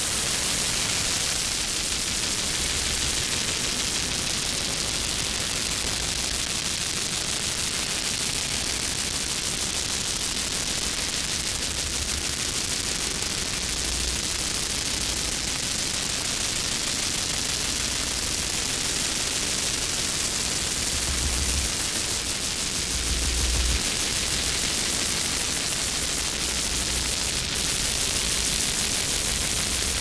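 Experimental noise music: a steady, dense wall of static-like hiss, brightest in the upper range, with irregular low rumbling thuds underneath.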